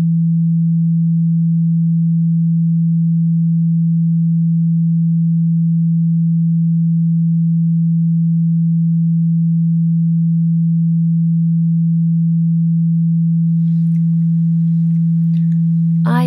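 One steady low pure tone, just under 200 Hz, held unchanged from the background track of an affirmation recording, with faint higher sounds creeping in near the end.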